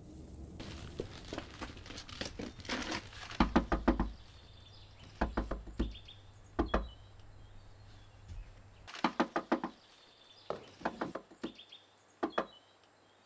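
Knuckles rapping on a glass window pane, in quick groups of two to four knocks repeated several times, with lighter clicks before the first group.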